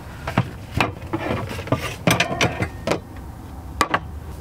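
Rummaging in a kitchen cabinet, with scattered knocks and clinks as a frying pan with a glass lid is lifted out. The sharpest knocks come just under a second in and near the end.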